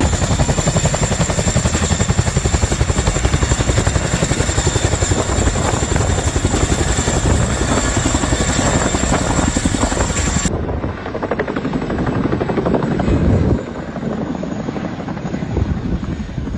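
Helicopter rotor running close by: a loud, fast, steady chop of the blades with a high steady whine over it. The sound becomes duller about ten seconds in and quieter a few seconds later.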